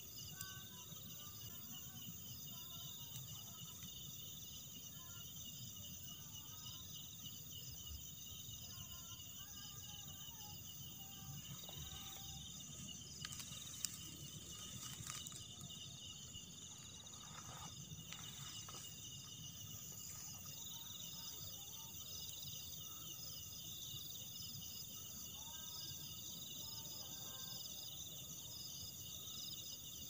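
A night chorus of crickets and other insects: steady trilling at several high pitches, with a few rustles and brushes of grass around the middle.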